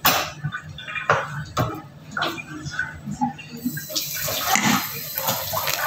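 A small spatula scraping chocolate ganache onto the sides of a cake, with a few sharp knocks in the first two seconds. From about three and a half seconds in there is a steady hiss.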